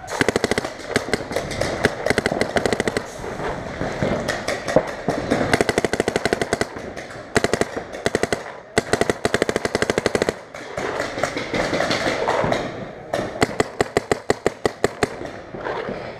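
Paintball markers firing rapid strings of shots, many a second, in long volleys with short pauses between them.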